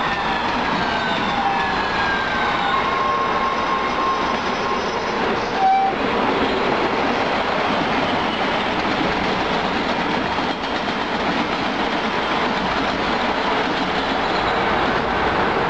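MBTA Red Line subway trains running through the station: a steady rumble of wheels on rail. In the first few seconds the arriving train's motors whine, falling in pitch as it brakes. About six seconds in there is a brief high tone.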